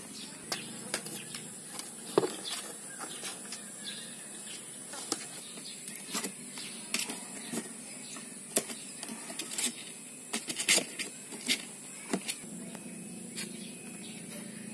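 Kittens scrambling and tussling in a cardboard box: irregular scratches, taps and thumps of claws and paws on the cardboard.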